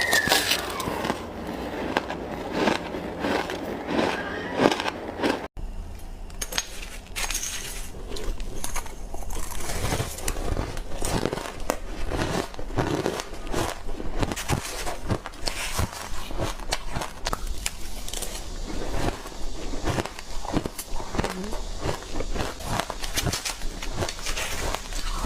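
Ice being crunched between teeth, bite after bite from spoonfuls of ice: a dense run of crackling crunches, with a brief gap about five and a half seconds in.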